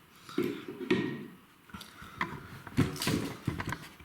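Clicks, knocks and scraping as a brushed brass double socket is handled and fitted onto its wall box.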